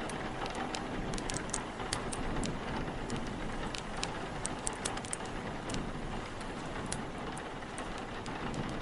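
Steady rain hiss mixed with the irregular small crackles and pops of a wood fire, several a second.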